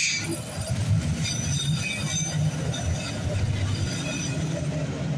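Slow-moving freight train of boxcars and autoracks rolling past: a steady low rumble from the wheels on the rails, with faint high squeals now and then.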